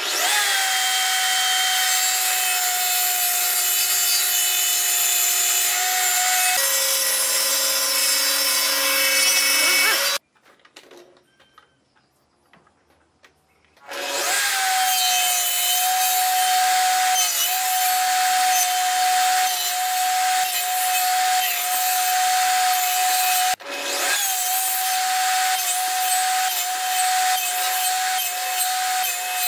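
Table saw running with its blade spinning, a steady high whine; about six and a half seconds in the pitch drops as the blade cuts into a wooden board, taking passes to nibble out a notch. The sound cuts off suddenly about ten seconds in and comes back with the same whine about four seconds later.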